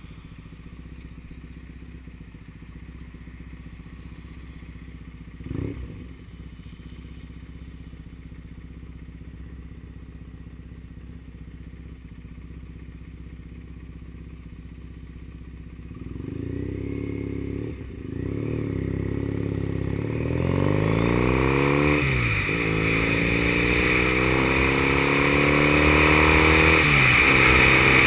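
Triumph Bonneville's parallel-twin engine idling while stopped, then pulling away about sixteen seconds in. The engine note rises through each gear and dips at each upshift, a few times over, while wind rush builds as speed picks up.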